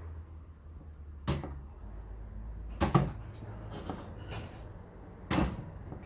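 Three sharp clacks of the hard casing of a vintage Airflow 12 electric fan being handled, spread over a few seconds, over a low hum.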